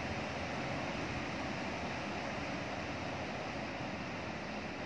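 Steady rain falling on the yard and roofs, an even unbroken hiss.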